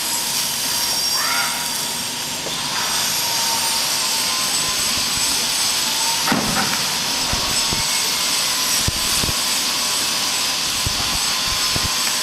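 Steady, loud rushing hiss, with a few dull knocks and thumps about six to nine seconds in.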